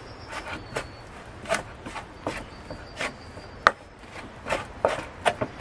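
Wooden spoon scraping and knocking against a bamboo bowl while stirring flour, oil and water into a stiff bannock dough: irregular taps and scrapes, the sharpest about two-thirds through.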